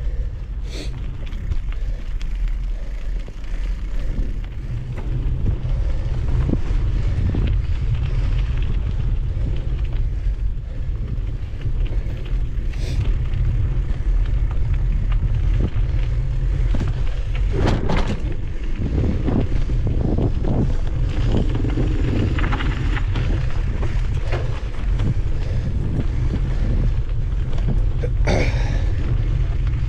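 Steady low rumble of wind on the microphone of a mountain bike riding along a dirt trail, with tyre and trail noise and a few sharp knocks and rattles from bumps, the loudest about two-thirds of the way through.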